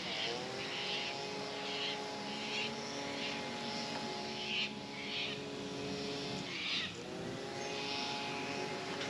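A steady engine drone made of several pitched tones; it drops in pitch just at the start and dips and climbs back about seven seconds in. Over it come short crunching steps, about one every two thirds of a second.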